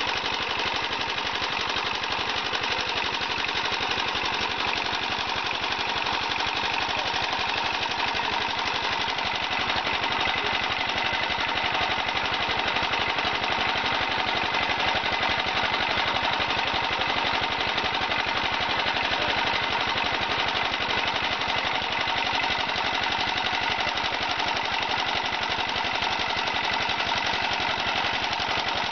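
Small motor-driven charcoal briquette machine running steadily with a fast, even rattle as charcoal is fed through it.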